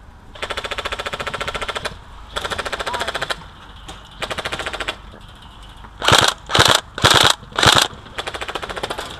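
Airsoft electric rifles firing full-auto bursts, each a rapid, even rattle of shots: three bursts in the first five seconds and another near the end. About six seconds in come four short, much louder blasts about half a second apart.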